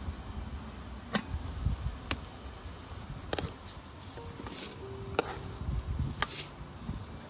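Metal spoon clinking and scraping against an enamel basin as rice is pushed off it into a pot of boiling water: about five sharp clinks roughly a second apart, over a low rumble.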